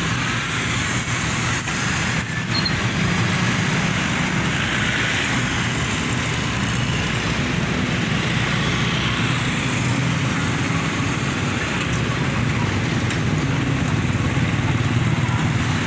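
Heavy diesel engine running steadily with a constant low hum.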